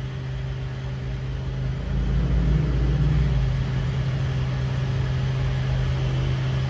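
A steady low hum that grows a little louder about two seconds in.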